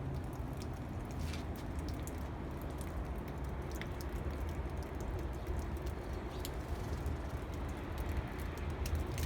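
Steady low outdoor rumble with a few faint, scattered ticks.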